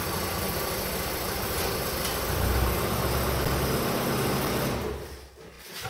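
Toyota Carina TA60's engine idling steadily, swelling a little about two seconds in, then switched off near the end, followed by a single knock.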